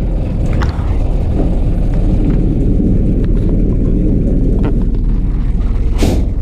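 Bus engine and road noise, a steady low rumble, with a short hiss about six seconds in.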